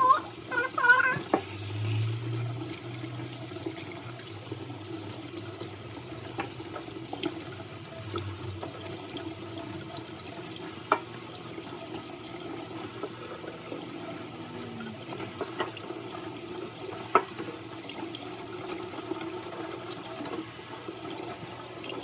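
Kitchen tap running into a sink while raw chicken is rinsed under it, with a few sharp clicks and knocks.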